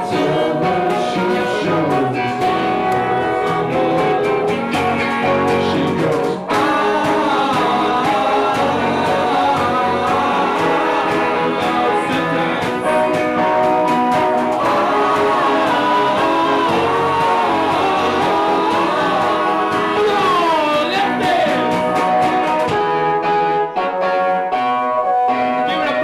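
Live band playing a song loudly, with singing and guitar.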